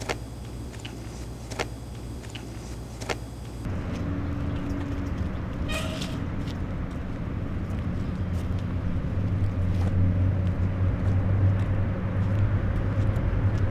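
Quiet room tone with a few faint clicks, then, about four seconds in, a cut to a steady low outdoor rumble that grows louder from about nine seconds on.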